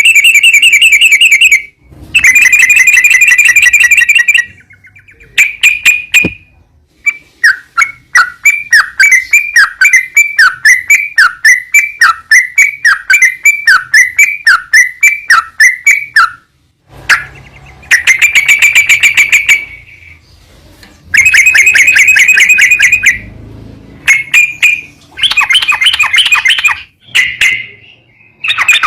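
Yellow-vented bulbul (trucukan) song played as a lure recording: loud bouts of rapid, buzzy trills broken by short pauses, with a long run of repeated swooping notes, about two a second, in the middle.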